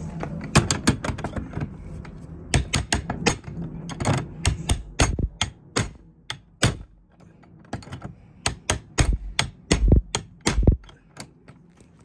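Repeated sharp metal clanks of a crowbar whacking and wrenching at a laminated steel padlock on a door hasp, in quick bursts of strikes with a short pause in the middle. The padlock holds and does not open.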